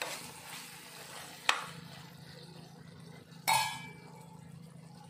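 Metal cookware clinking twice: a short sharp click about one and a half seconds in, then a louder ringing clink about two seconds later, over a faint steady low hum.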